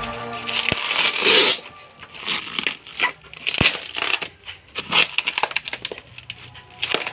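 Crinkling and rustling of packaging being handled, with scattered short crackles and clicks and a louder burst of crinkling about a second in.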